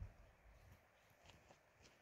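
Faint footsteps on a hiking trail: soft low thuds with light gritty clicks, about two steps a second.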